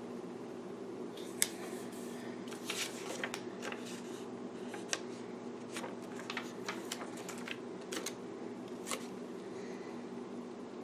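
Paper stickers being peeled off a sticker sheet and pressed onto a planner page: scattered small crisp paper clicks and rustles, the sharpest about a second and a half in, over a steady low hum.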